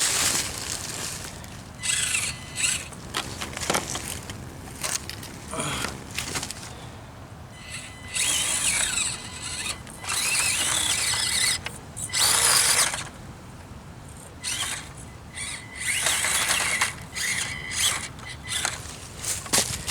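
Axial SCX24 micro crawler's small electric motor and drivetrain whining in repeated short bursts, each from under a second to about two seconds, as the throttle is worked on and off.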